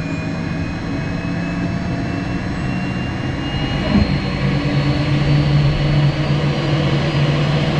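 Cessna Citation Mustang's Pratt & Whitney Canada PW615F turbofan spooling up during engine start, heard inside the cockpit: a whine slowly rising in pitch over a steady low hum. There is one short thump about four seconds in.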